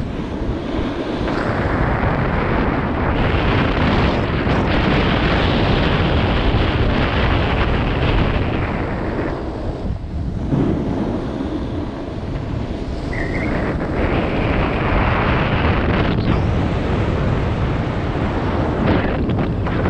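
Wind rushing over an action camera's microphone as a snowboard slides down a groomed piste, its base and edges scraping over the corduroy snow. The rush eases off briefly about halfway through and again near the end.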